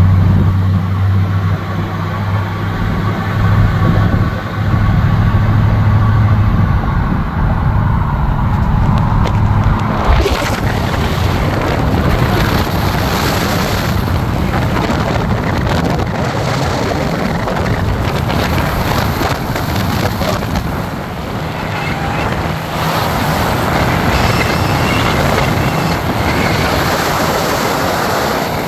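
Vehicle driving along, heard from inside the cab: a steady low engine and road drone. About ten seconds in, a loud, even rush of wind noise joins it and stays.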